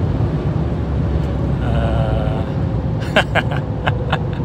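Cab interior of a Chevy Silverado with a 6.2 L V8 slowing from about 100 mph off the throttle: a steady low engine and road rumble. A few sharp clicks come near the end.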